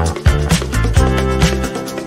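Background music with a steady beat: upbeat funk-style track with bass, drums and guitar.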